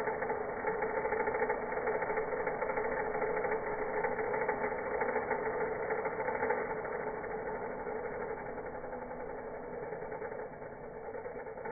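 Vacuum cleaner motor running, played slowed down: a steady drone with two strong hum tones and a rapid flutter through it, easing off slightly over the last few seconds.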